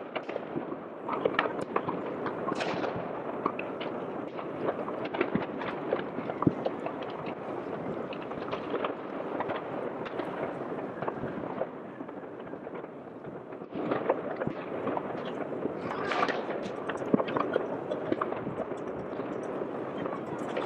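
Distant New Year's Eve fireworks and firecrackers going off all over the city at once: a continuous din of bangs, pops and sharp cracks. It eases about twelve seconds in and picks up again about two seconds later.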